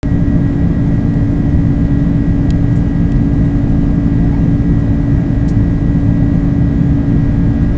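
Jet airliner engine noise heard inside the passenger cabin: a loud, steady rush with a constant low hum and a fainter steady high whine underneath. A couple of faint ticks sound about two and a half and five and a half seconds in.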